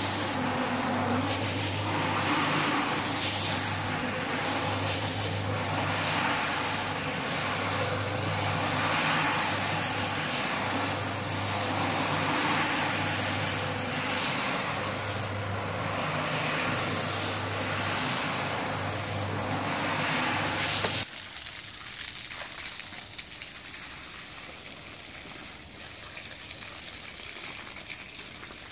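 Single-disc rotary floor scrubber running its brush through a shampoo-foamed shag rug: a steady motor hum with scrubbing noise, the hum swelling and fading every couple of seconds. About two-thirds through, it cuts off suddenly and only a quieter steady hiss remains.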